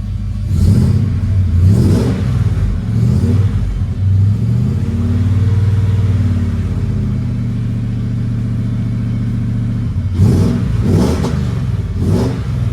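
Holden VN Calais's factory 5-litre V8 revved while parked: three quick throttle blips in the first few seconds, a longer rev held up for a couple of seconds in the middle, then three more short blips near the end.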